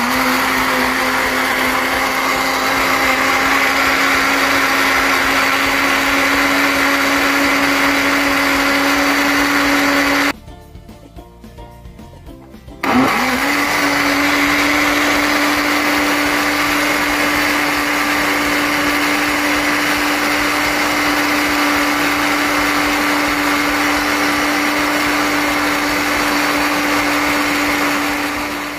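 Countertop blender motor running at a steady pitch, blending cooked jackfruit. About ten seconds in it stops for a couple of seconds, then starts again with a sudden jolt and runs on, winding down at the very end.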